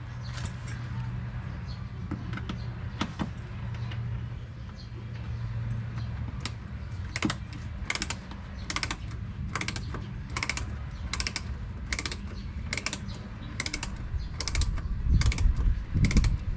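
Short Phillips screwdriver undoing a screw under the wheel-arch trim: a run of sharp clicks, growing regular at about one or two a second from about six seconds in, with a louder low rumble near the end.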